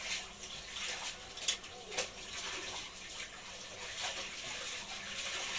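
Pre-boiled fish scraps frying in oil in a pan: a steady sizzle with scattered sharp pops and crackles.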